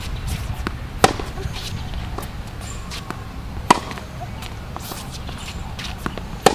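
Tennis ball struck hard with a racket in a baseline rally: three sharp pops about two and a half seconds apart, with fainter pops of the ball bouncing and being hit back from the far end of the court in between.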